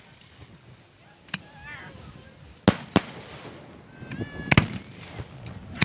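Fireworks going off: a series of about six sharp bangs at irregular intervals, two of them close together a little past the middle.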